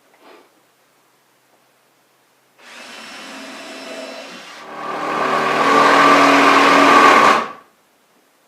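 Electric power tool motor running in two goes: a lighter run of about two seconds, then a louder run of about three seconds that cuts off suddenly.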